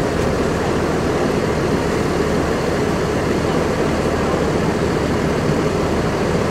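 Steady engine rumble of a tour bus mixed with city traffic noise.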